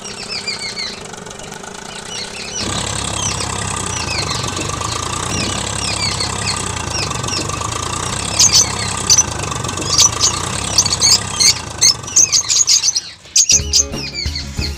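An engine running steadily, starting about two and a half seconds in and stopping shortly before the end, with birds chirping throughout.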